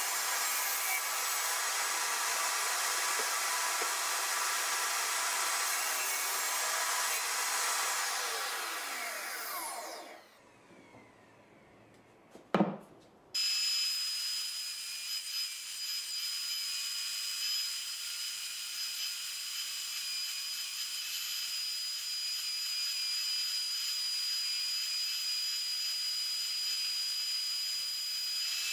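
Table saw running as a wooden board is pushed past its blade, then switched off and spinning down, its pitch falling away. A single sharp knock in the short lull, then a bandsaw starts up abruptly and runs with a steady high whine while a wooden block is fed through its blade.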